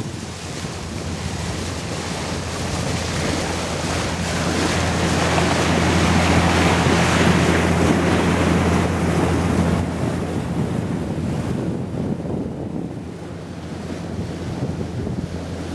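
Water rushing past the bow of a sailing vessel moving through calm sea, mixed with wind buffeting the microphone. The rush swells in the middle and eases a little near the end, over a low steady hum.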